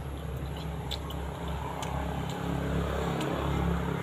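Steady low hum of an engine running in the background, with a few faint clicks and taps.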